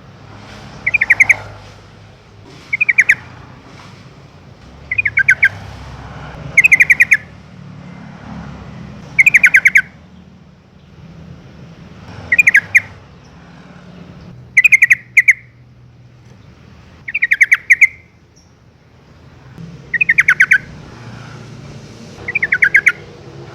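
Yellow-vented bulbul calling: loud, short bursts of rapid chattering notes, each about half a second long, repeated about every two to three seconds, ten times.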